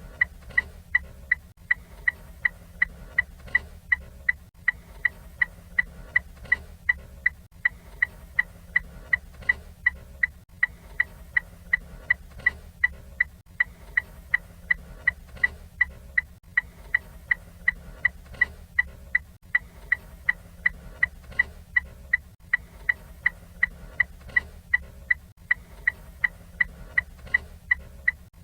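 Ford Fiesta turn signal ticking steadily while the indicator is on: sharp, evenly spaced high ticks, a little over two a second.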